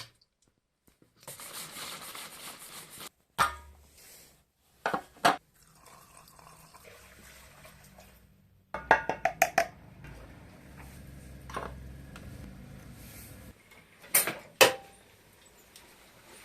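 Work and handling noises: a hiss for about two seconds, then separate sharp knocks and clinks, a quick run of clicks about nine seconds in, and two more knocks near the end.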